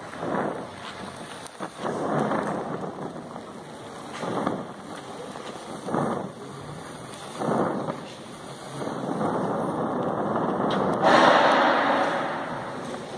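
Oxy-acetylene gas-welding torch flame hissing and rumbling while a mild steel filler rod is melted into a weld between mild steel plates. It surges every second or two and grows louder for a second or so near the end.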